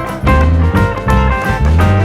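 Background music: an upbeat guitar-led instrumental with a steady bass beat.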